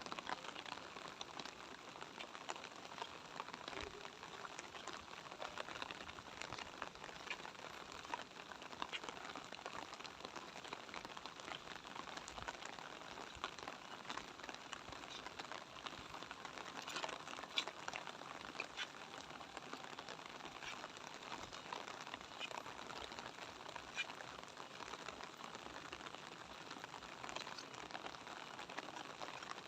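Light rain falling steadily, a soft hiss dotted with many small drop ticks.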